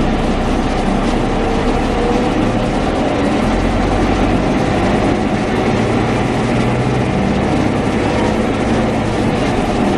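Irisbus Crossway 12 LE bus heard from inside the passenger cabin as it drives off: engine running steadily under a constant rumble of road and body noise.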